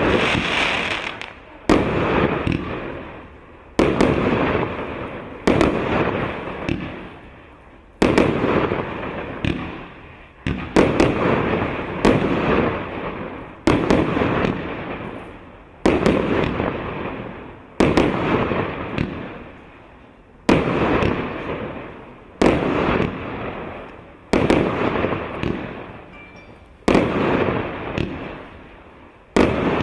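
Consumer firework battery (cake) firing its shots one by one, a sharp bang about every two seconds, each trailing off over a second or two.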